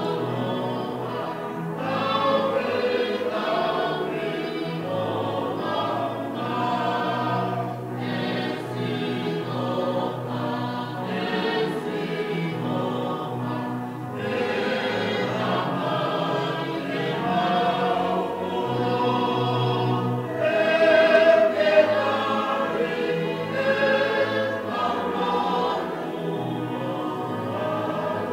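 A church congregation singing a hymn together in Tongan, many voices in parts with long held notes.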